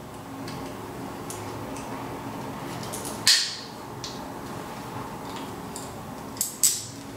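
Sharp metallic clicks of pliers gripping and turning a nut on a threaded rod against a stack of neodymium ring magnets. There is one loud click about three seconds in, two close together near the end, and small ticks between, over a steady low hum.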